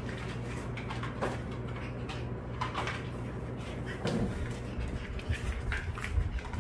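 Dogs scuffling in play on a slick wooden floor: scattered light taps and scrapes of claws and paws, with a soft low rumble of bodies tumbling in the second half.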